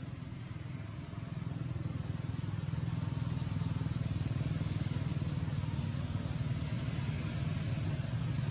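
A motor vehicle's engine running nearby: a steady low rumble that builds over the first two or three seconds and then holds level.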